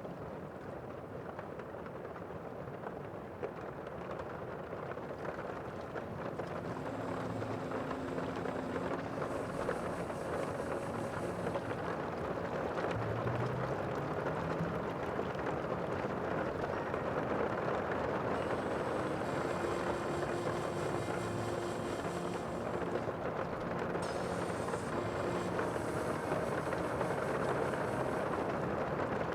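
Steady rushing sea ambience of waves and wind, slowly growing louder.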